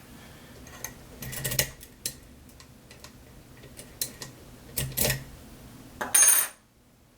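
Small metallic clicks and clatters of a lock and tools being handled and set down on a desk. A louder clatter comes about six seconds in, and then it goes nearly silent.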